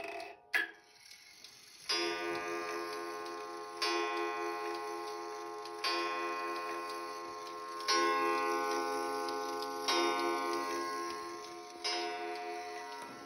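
Small pendulum wall clock striking the hour on its gong: six ringing strokes about two seconds apart, starting about two seconds in, each dying away slowly, with the clock's ticking underneath. A couple of clicks come at the start, as the minute hand is pushed round to the hour to set off the strike.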